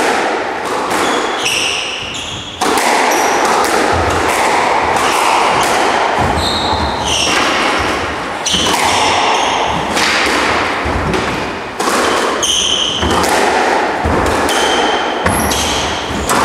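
Squash rally: the ball is struck by rackets and thuds off the court walls again and again, with sneakers squeaking in short chirps on the wooden floor, over a steady rushing background noise.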